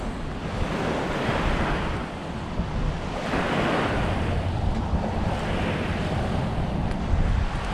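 Surf washing on the beach, swelling and fading three times, with wind buffeting the microphone in a low rumble.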